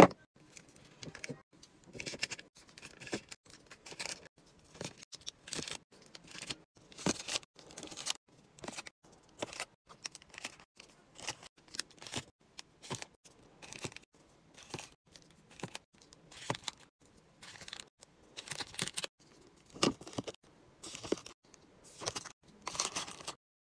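Plastic chocolate-bar wrappers crinkling and tapping against a clear plastic drawer as the bars are set in one by one. It comes as uneven rustles, about one or two a second, with a sharp click right at the start.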